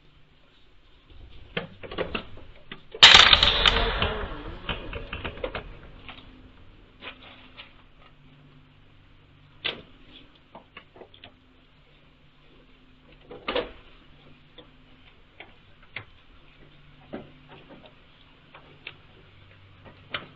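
Scattered knocks and clicks of a Nigerian Dwarf goat and her handler on a wooden milking stand, with one loud clatter about three seconds in. A faint low hum runs underneath.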